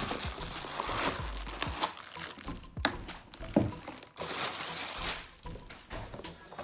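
Plastic bubble wrap crinkling and rustling as it is pulled out of a cardboard shipping box and unwrapped from a boxed figure, with a few light knocks of handling.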